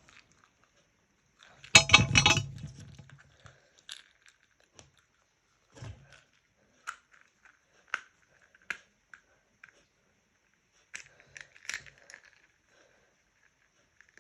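Hands picking and digging at a small toy to get a surprise out of it: scattered clicks, scrapes and crackles, with a louder crackling burst about two seconds in and another cluster near the end.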